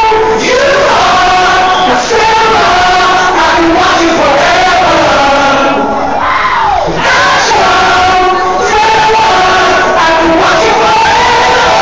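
A packed concert crowd screaming, cheering and singing together, many voices at once, as the heavy bass of the dubstep set cuts out. A falling pitch sweep comes through about six seconds in.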